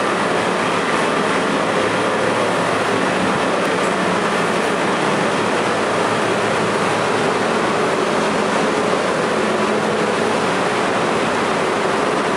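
R32 stainless-steel subway cars standing at the platform with their doors open, giving off a steady hum and rush of onboard equipment and ventilation, with a few faint steady tones.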